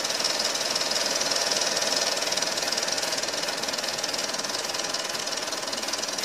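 Film projector running: a steady, rapid mechanical clatter.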